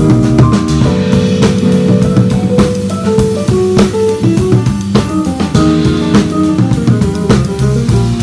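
Live band playing a jazz-funk groove: drum kit hits over a bass line and sustained melodic notes.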